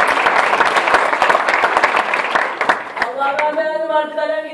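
Audience applause, dense clapping that thins out and dies away about three seconds in, when a voice starts speaking.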